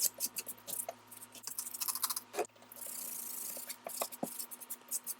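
Scrubbing and wiping a sticky, yellowed corn-syrup stain: a run of small clicks, taps and scrapes, with about a second of steady hissing rub a little before the middle.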